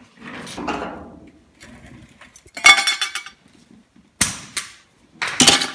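Sheet steel clanking and ringing: a bright metallic clatter about halfway through, then two sharp clanks near the end.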